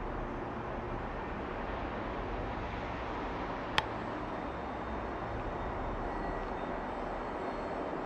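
Steady background rumble and hiss of ambient noise, with a single sharp click about four seconds in.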